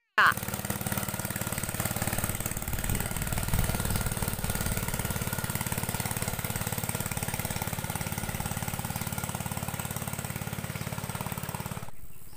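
Small engine of a wooden river boat running steadily as the boat passes close by, a fast, even beat. It starts suddenly and cuts off abruptly near the end.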